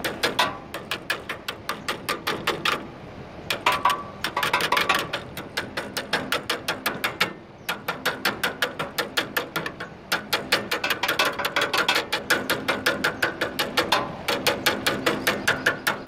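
Pliers tapping rapidly on the copper filter dryer and capillary tube of an air conditioner's outdoor unit, about five metallic taps a second in several runs with short breaks. The pipes have been warmed with a torch, and the tapping is meant to loosen a mild blockage in the filter dryer and capillary that is starving the unit of refrigerant.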